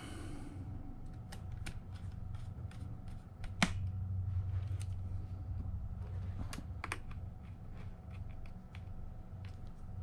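Precision screwdriver turning screws into the bottom panel of an Alienware M15 laptop: scattered light clicks and ticks, with a sharper click about three and a half seconds in and two more near seven seconds.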